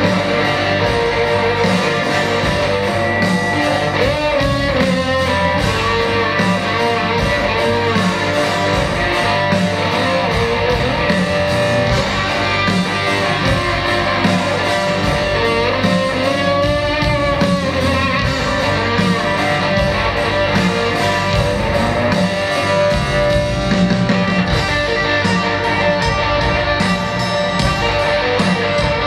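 Live rock band playing an instrumental passage: an electric guitar plays bending lead lines over bass guitar, drums and keyboards.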